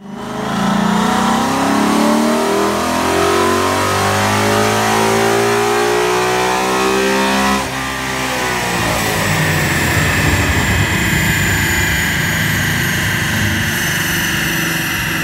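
Ford Shelby GT500's supercharged V8 revving under load on a chassis dyno, its pitch climbing steadily for about seven and a half seconds. It then drops off suddenly as the throttle is lifted, leaving a rumble and a high whine that slowly falls as the drivetrain spins down.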